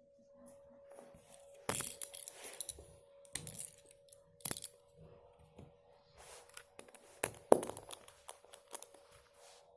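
Plastic LEGO bricks and plates clicking and rattling as they are handled and pressed onto a build, in irregular sharp clicks and short rustles; the loudest click comes about three-quarters of the way through. A faint steady hum runs underneath.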